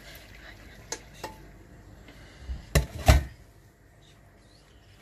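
A metal cooking pot knocking against a stainless steel colander as boiled plums are tipped out to drain. Two light clinks about a second in, then a cluster of loud clanks about three seconds in.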